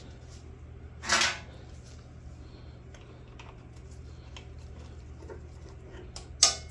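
Metal tools and engine parts clinking while the oil pump is unbolted: a short clatter about a second in, scattered faint clicks, and two sharp clicks near the end, over a steady low hum.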